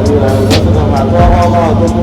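Music: a sung vocal line over a steady bass and drum beat, in a hip-hop/R&B style.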